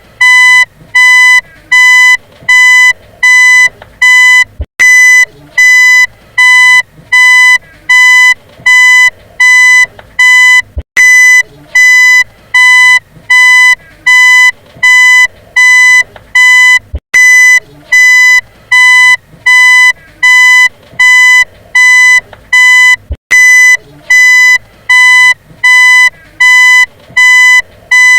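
Car reversing beeper sounding a steady string of short, high-pitched, buzzy beeps, just under two a second. A sharp click comes about every six seconds, where the looped recording starts over.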